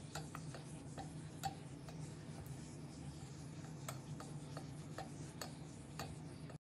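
Black plastic spatula stirring and scraping melted brown sugar caramel around a stainless steel pot, with irregular light clicks as it knocks against the pot, loudest about one and a half seconds in. A low steady hum runs underneath.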